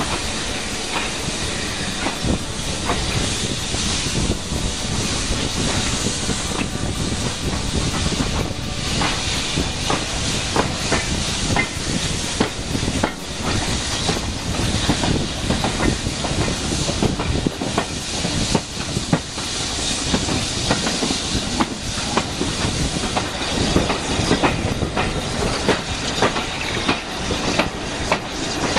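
Steam-hauled train moving, heard from an open carriage window: the steam locomotive's hiss and exhaust with the coaches' wheels clattering over the track, with many sharp clicks throughout.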